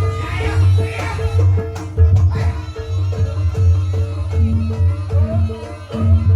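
Live Javanese jaranan gamelan music: kendang hand drums beating a driving rhythm under a bronze chime note struck about twice a second.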